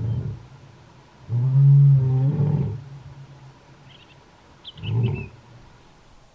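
Male lion roaring. The tail of one roar at the start, then a full, deep roar about a second in, then a shorter, weaker grunt near five seconds, the way a roaring bout trails off.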